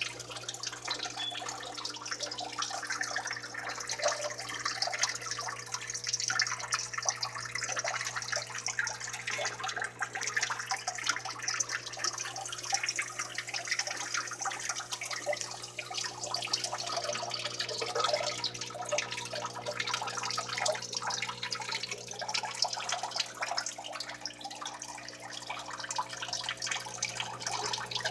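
Steady running water trickling and splashing into a reptile enclosure's pool, over a low steady hum.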